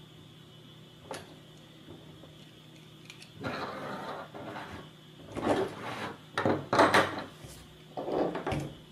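Handling noise from hand tools and a small plastic-and-metal robot car kit being put down and moved about on a tabletop: one sharp click about a second in, then several bursts of clattering and rubbing in the second half.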